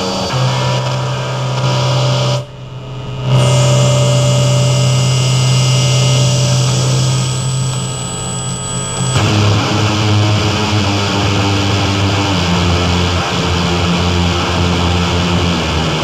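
Live noise music: a dense wall of harsh noise over a steady low drone. It dips briefly about two and a half seconds in, and about nine seconds in the texture shifts to a lower, rougher drone.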